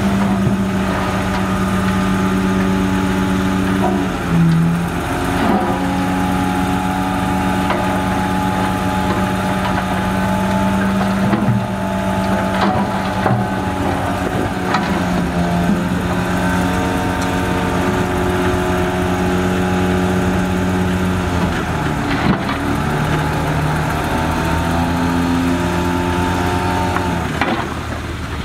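Heavy diesel engine of an earthmoving machine running under load, its pitch stepping up and down as it is worked, with occasional clanks.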